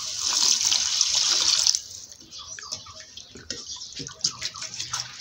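Water poured from a small cup into a pot of fried tomato paste, a loud splashing hiss lasting about two seconds. After it stops, a wooden spoon stirs the thinned sauce with soft scrapes and clicks against the aluminium pot.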